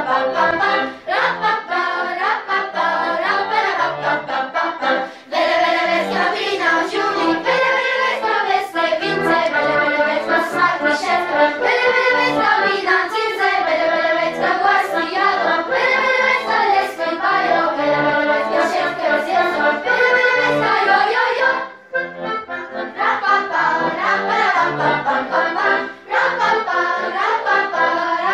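Children's choir singing a song together over instrumental accompaniment with a regular bass beat. The music breaks off briefly about three-quarters of the way through, then resumes.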